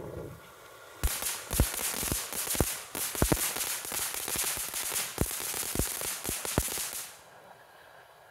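Fountain firework crackling. A dense run of popping sparks, with many sharper, louder cracks, starts abruptly about a second in and stops suddenly about a second before the end. Before and after it, the fountain's fainter hiss can be heard.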